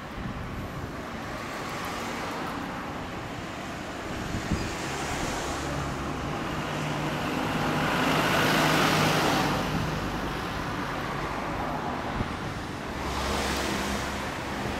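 Road traffic passing: vehicles swell by, loudest about eight seconds in and again near the end.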